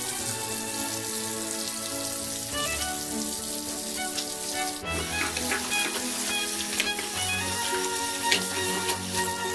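Tap water running into a bathroom sink as hands are rinsed under the stream, with background music playing over it.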